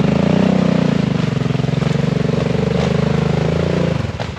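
Sport quad (ATV) engine running hard under throttle as it pulls through deep mud and water, with a fast, even pulsing beat; the revs drop away near the end.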